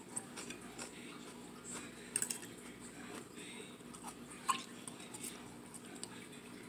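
Quiet eating sounds: chewing and mouth noises with a few light clicks of a fork against a plate, a small cluster about two seconds in and another about four and a half seconds in, over a faint steady hum.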